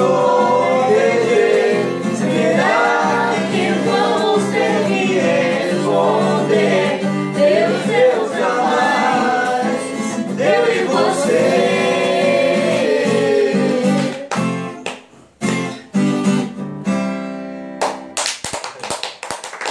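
Several voices, men and a woman, singing a song together to a strummed acoustic guitar. Near the end the singing stops, the guitar closes with a few separate strummed chords and a ringing last chord, and clapping starts just at the end.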